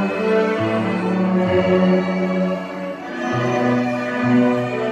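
Fourth-grade string orchestra playing, cellos and violins bowing long held notes, with the low cello line moving to a new note about once a second.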